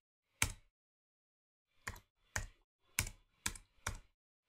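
Six single keystrokes on a computer keyboard, slow and unevenly spaced about half a second apart, typing one character at a time.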